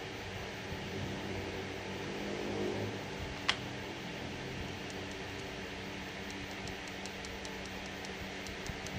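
Steady hiss and low hum of background noise, with one sharp click about three and a half seconds in and a few faint light ticks later on.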